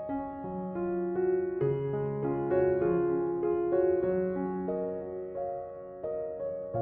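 Slow, gentle piano music, single notes and chords changing about every half second.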